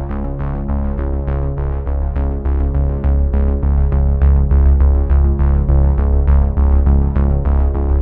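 Background electronic music: synthesizer chords over a bass line with a steady, quick beat.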